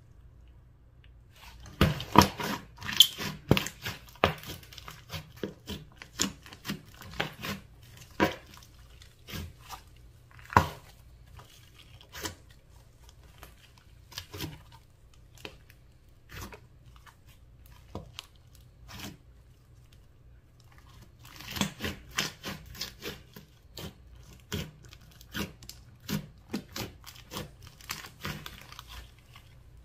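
Thick slime with small beads mixed in, stretched, pressed and squeezed by hand, making a run of sticky clicks and pops. They come thick and fast from about two seconds in and again over the last eight seconds, more sparsely in between.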